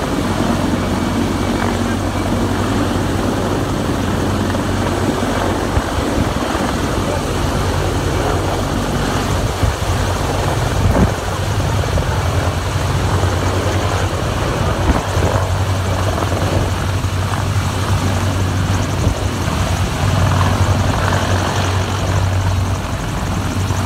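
USMC CH-53E Super Stallion heavy-lift helicopter, its three turboshaft engines and seven-bladed main rotor running loud and steady as it hovers low and descends to land.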